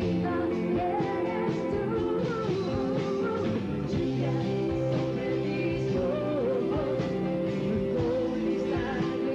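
Rock band playing live, a wavering sung melody over held chords.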